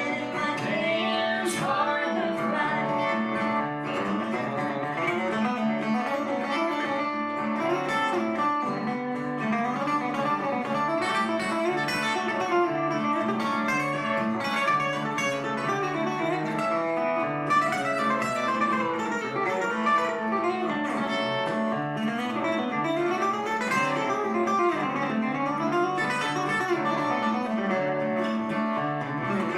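Live acoustic guitar music in a country style, with picked guitar notes throughout.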